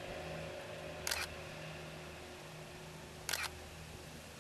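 Canon EOS-1Ds Mark II DSLR shutter released twice, about two seconds apart. Each release is a quick double clack of mirror and shutter, over a faint steady low hum.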